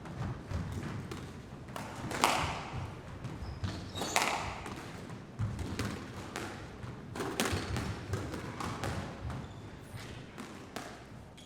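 Sports hall ambience: balls bouncing and thudding on the floor at irregular intervals, echoing in the large hall. The two loudest impacts come about two and four seconds in.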